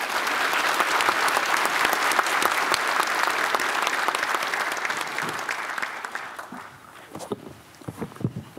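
Audience applauding, a dense steady clapping that thins out and dies away over the last couple of seconds.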